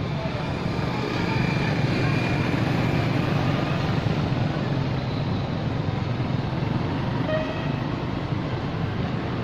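Steady road traffic noise, a continuous rumble with no break.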